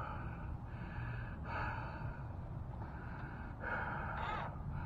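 A man breathing hard and audibly, with a run of heavy in-and-out breaths, winded from straining.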